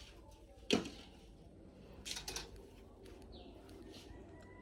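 A single sharp knock about a second in, then two lighter clicks, with faint bird chirps in the background.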